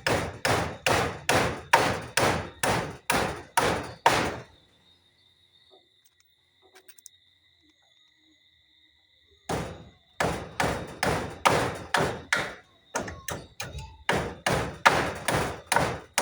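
Hammer driving nails with steady, evenly spaced blows, about two and a half a second. The hammering stops about four seconds in and starts again some five seconds later.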